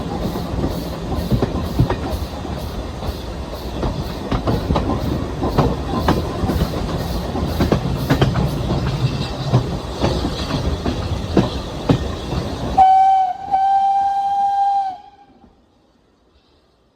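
Steam locomotive running with irregular clanks and clicks from the wheels and rails. About thirteen seconds in, its whistle sounds: a brief toot, then a longer steady blast that stops about two seconds later.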